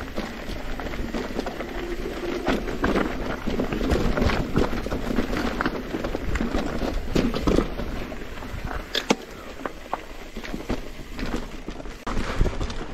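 Mountain bike riding over a rocky dirt trail: the tyres crunch and bump over stones while the bike rattles and clatters in quick, irregular knocks.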